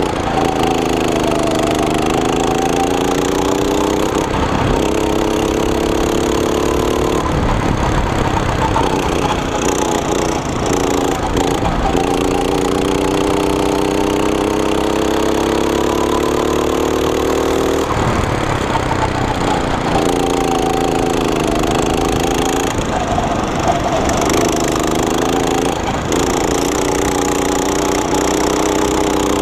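Go-kart's small single-cylinder engine running hard close to the microphone. Its pitch climbs slowly along each straight and drops away sharply as the driver lifts off for each corner, about six times.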